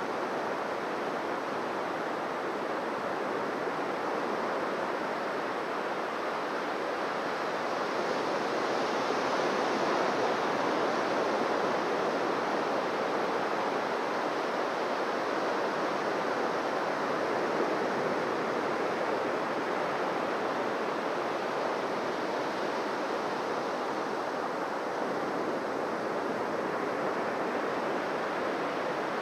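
Waves washing on a beach in a steady, continuous surf wash that swells a little about a third of the way in.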